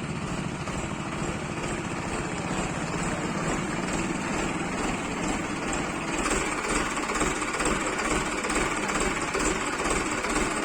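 Engine of a Mahindra vehicle running with a fast, even knocking rhythm, getting somewhat louder about six seconds in.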